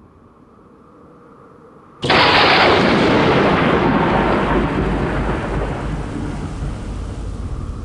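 A sudden loud crash of noise about two seconds in, which turns into a rushing rumble that dies away slowly over the next several seconds.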